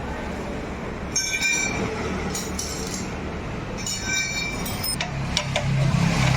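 Metal parts or tools clinking and ringing in two short spells, followed by several sharp knocks near the end, over a steady low hum.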